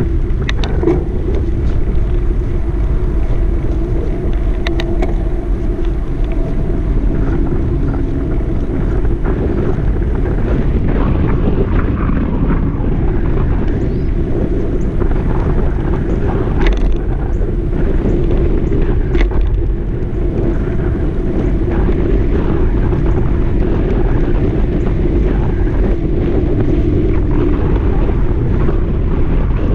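Wind noise on the microphone of a moving camera: a steady, loud rush, with a few faint clicks now and then.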